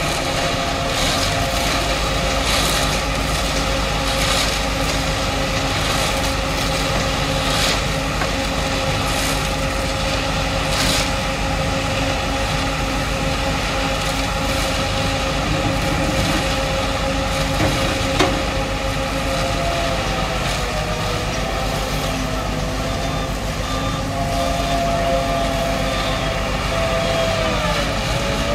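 Schwing Stetter SLM 4300 self-loading concrete mixer's diesel engine and hydraulics running steadily under load, with a steady whine that wavers up and down in pitch in the second half. A series of sharp knocks about once a second over the first ten seconds, and a single sharp click about two-thirds of the way in.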